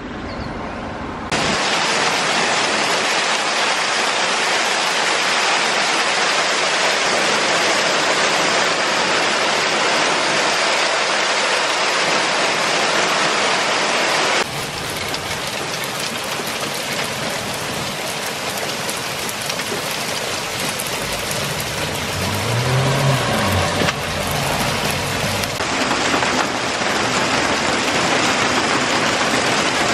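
Heavy hail and rain pelting down, a dense steady hiss of hailstones and raindrops striking roofs, the ground and a window. The sound changes abruptly about halfway through and again near the end.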